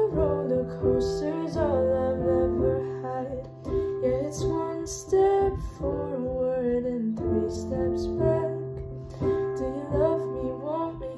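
A woman singing a slow ballad over piano accompaniment.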